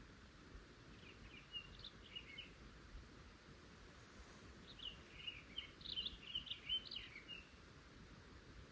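Faint chirping of small birds in two brief flurries, one about a second in and a longer, busier one from about five to seven and a half seconds in, over a quiet background hiss.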